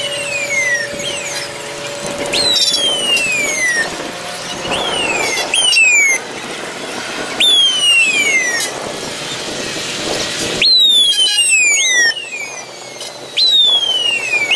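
Fire engine sirens giving repeated wails, each snapping up in pitch and then falling away over about a second, several sirens overlapping as the trucks pass close.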